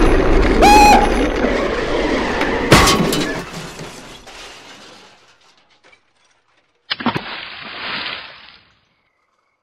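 Cartoon crash sound effects for a bicycle wreck: a short squeal, then a clattering, shattering crash ending in a hard hit about three seconds in, fading out. After a few seconds of silence, a short splash into water.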